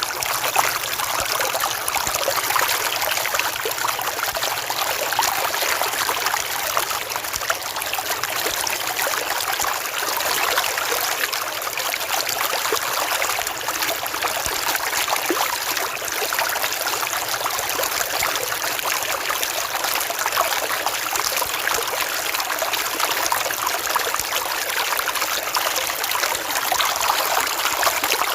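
A river flowing, a steady, unbroken rush of running water.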